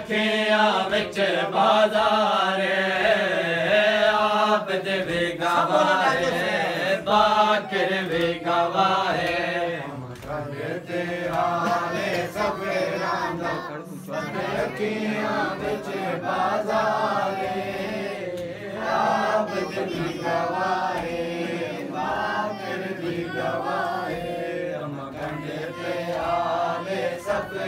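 A group of men chanting a noha, a Shia mourning lament, in unison, with rhythmic chest-beating (matam) keeping time beneath the voices.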